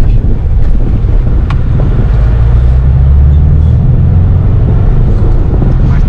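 Steady low rumble of a car's engine and tyres, heard from inside the cabin while driving on an unpaved dirt road.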